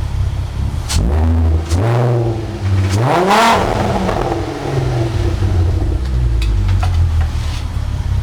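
VW VR6 24-valve engine idling and blipped three times, the third rev the highest, before settling back to idle. The owner suspects rod knock in it.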